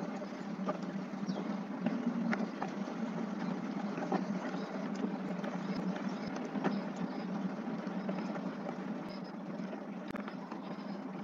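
Steady low background hum of the room, with a few sharp clicks scattered through it, mouse clicks as code is selected, copied and pasted.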